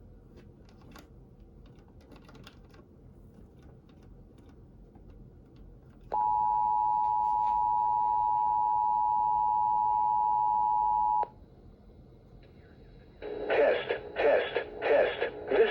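Emergency Alert System two-tone attention signal: a steady, loud pair of tones just under 1 kHz. It starts about six seconds in over a faint hiss with light clicks, holds for about five seconds and cuts off sharply. About two seconds later a voice begins reading the broadcast alert.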